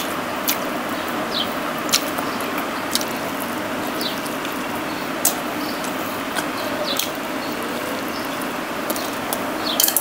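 A person eating with their fingers: wet chewing and lip-smacking clicks, scattered irregularly over a steady background hiss.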